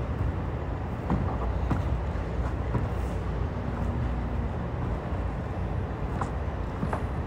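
Steady low rumble of a room's ventilation system, with a few soft knocks of feet on a wooden floor.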